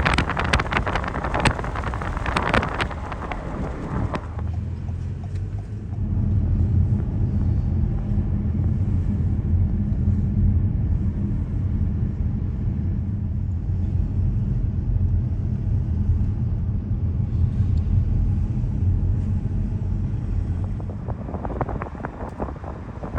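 A vehicle driving, with a steady low engine and road drone. For the first few seconds and again near the end, wind rushes loudly over the microphone.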